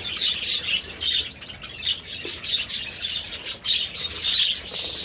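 A flock of small caged birds chirping and chattering, many short high calls overlapping without a break.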